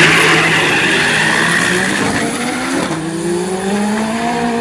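Pro-Street drag car's engine running at high revs, its pitch slowly climbing, dipping about three seconds in as at a gear change and climbing again. A hiss like spinning tyres sits over the engine for the first two seconds.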